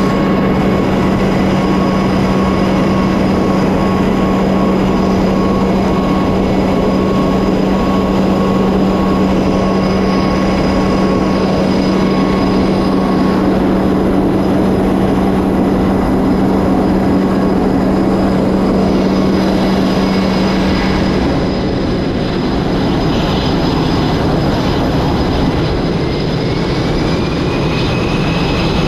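Loud, steady roar of jet aircraft engines running, with a strong steady hum that stops about 21 seconds in and a faint rising whine near the end.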